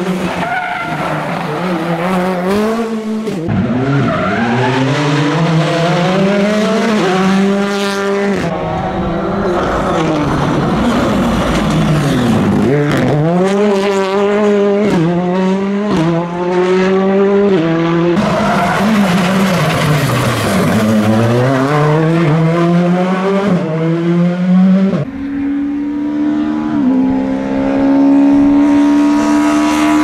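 Rally cars racing past one after another, their engines revving hard. The pitch climbs and drops with each gear change as the cars brake into corners and accelerate out.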